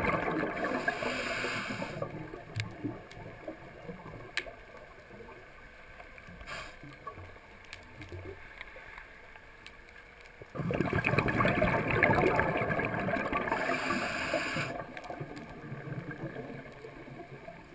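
Scuba diver breathing through a regulator underwater. A bubbling exhale and hiss comes at the start, then a quieter stretch of several seconds, then another long bubbling exhale and hiss beginning a little past halfway.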